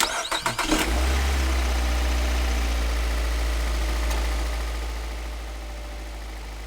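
Small machine motor running steadily with a low hum and a rattling, engine-like noise. There are a few clattering knocks in the first second, and the sound eases down gradually near the end.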